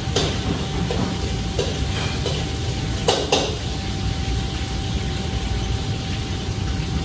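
Metal wok ladle clanking against a wok and pans over the steady roar of a commercial kitchen's extractor hood and burners. There are a few light clanks, and the loudest is a double clank about three seconds in.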